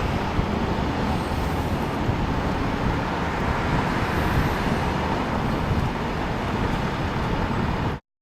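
Steady city street traffic noise, a constant rumble of passing vehicles, which cuts off abruptly near the end.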